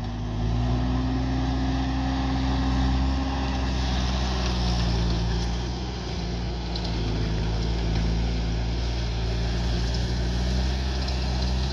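Bobcat T320 compact track loader's diesel engine running steadily while the machine drives on its tracks and works gravel, its pitch dipping slightly a few seconds in.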